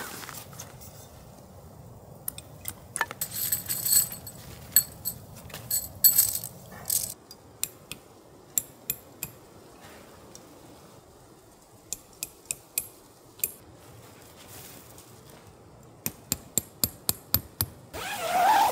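Camping gear clinking and clicking as it is handled: scattered sharp clinks through the first half, then a quick, even run of about four clicks a second near the end.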